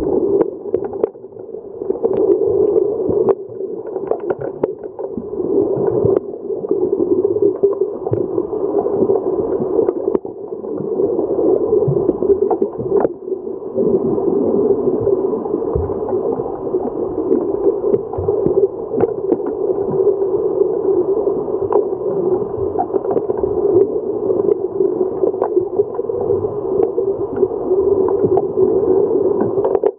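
Muffled underwater noise picked up by a camera below the surface of a pool: a dense, steady rush of water and bubbles from swimmers kicking with fins, with scattered sharp clicks.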